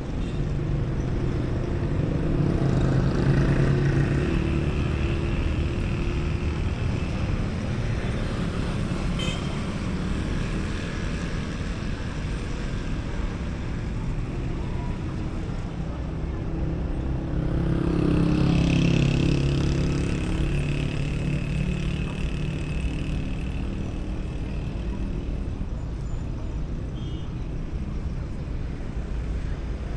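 Street traffic: a steady rumble of motor vehicles, with one passing close by a few seconds in and another a little past the middle.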